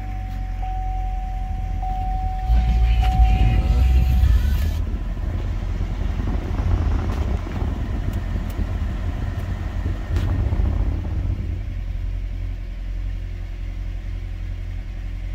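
GM 2.4 L Ecotec four-cylinder engine running just after start-up on a newly replaced throttle body, louder for a few seconds and then settling to a steady idle, which looks like the erratic idle is cured: 'so far so good'. A warning chime repeats in a steady tone for the first four seconds or so.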